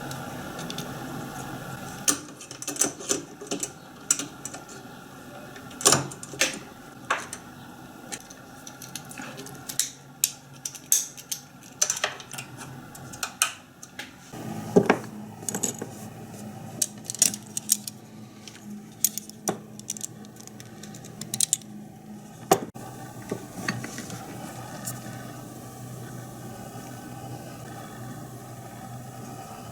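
Irregular metallic clinks and clatter, as of small metal parts or tools being handled, over a steady low machine hum that shifts in pitch about halfway through.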